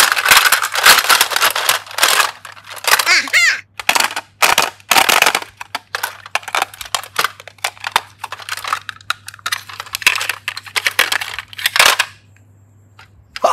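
Small clear plastic toy cases clattering and knocking against each other as a hand rummages through a basketful of them, with a brief squeak about three seconds in; the clatter stops suddenly near the end.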